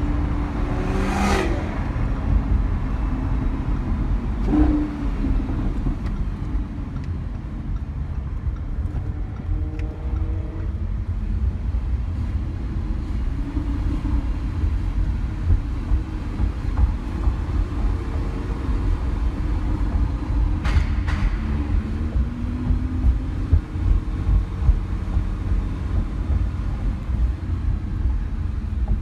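Lamborghini Huracán LP610-4's V10 engine and tyre noise heard from inside the cabin at an easy, steady pace: a continuous low rumble with a faint engine tone drifting up and down. A few sharp knocks break through, the loudest about a second in and a pair about two-thirds of the way through.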